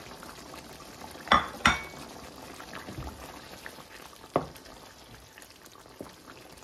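Chicken simmering in tomato gravy in a nonstick wok, a steady low bubbling, with sharp utensil knocks against the pan: two close together about a second and a half in and one more near the middle, as a wooden spatula starts stirring.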